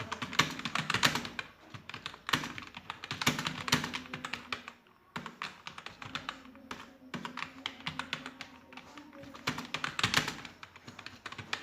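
Typing on a computer keyboard: a fast, uneven run of key clicks, with a short pause about five seconds in.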